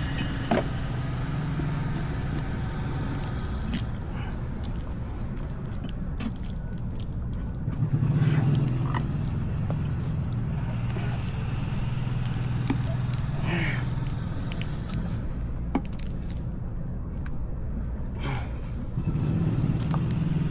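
A Onewheel's Enduro tire being worked over its hub rim by hand, with scattered scrapes, clicks and knocks as the rubber bead is forced on, the heaviest knocks about eight seconds in. A steady low hum lies under it throughout.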